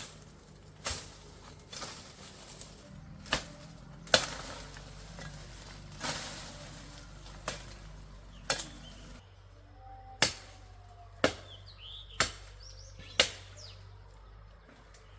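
Sharp repeated strikes, as of a tool hitting wood or another hard material, irregular at first and then coming steadily about once a second over the last few seconds. A bird chirps briefly between the later strikes.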